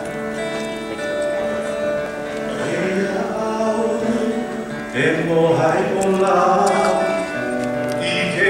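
Live worship band playing, opening on sustained keyboard chords; singers come in about two and a half seconds in and grow louder from about five seconds.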